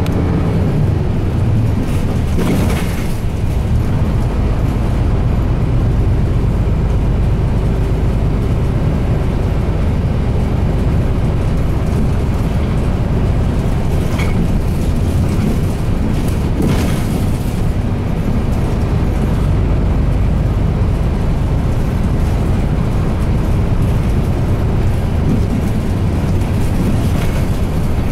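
Interior running sound of a Mitsubishi Fuso Aero Star KL-MP37JK city bus underway: its 6M70 turbocharged diesel engine drones steadily under road noise while the bus cruises.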